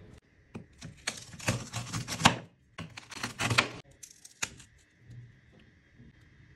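Brittle honeycomb toffee cracking and crunching as hands snap it into shards: two bursts of dense crackling about a second long each, then a single sharp snap.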